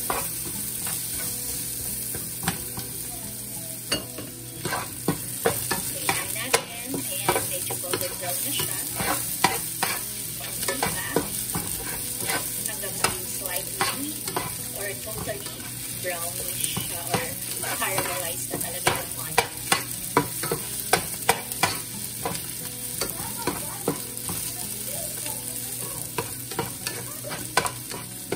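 Sliced onions sizzling in olive oil in a frying pan, stirred with a spatula that scrapes and taps against the pan, giving many sharp clicks over a steady sizzle.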